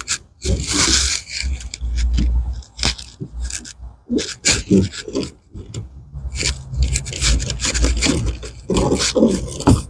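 Spline being pushed into a pet door frame's channel over pet screen mesh: repeated scraping and rubbing with scattered clicks and low knocks.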